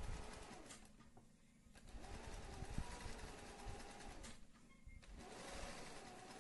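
Singer 20U industrial zigzag sewing machine stitching a satin-stitch edge in runs, stopping twice for about a second and starting again, with a low motor hum carrying on through the stops.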